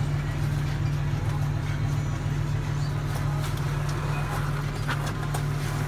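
John Deere 6170R tractor's 6.8-litre six-cylinder diesel running steadily at constant speed, heard from inside the cab, with a few faint clicks about three to five seconds in.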